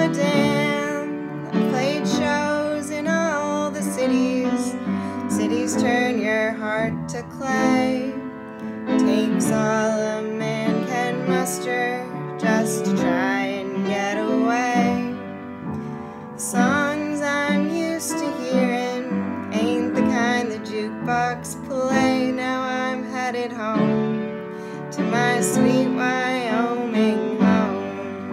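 Folk song performance: a woman's voice singing a wavering melody without words over instrumental accompaniment.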